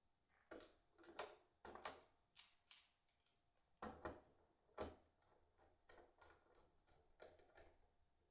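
Faint clicks and taps of small metal screws being handled and fitted by hand into a fuse holder on a battery case's front panel, with two sharper knocks about four and five seconds in.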